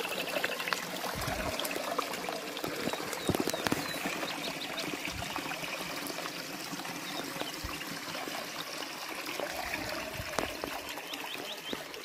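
Spring water pouring from a fountain spout into a concrete trough and spilling on through a chain of troughs: a steady splashing trickle, with a few faint bird chirps.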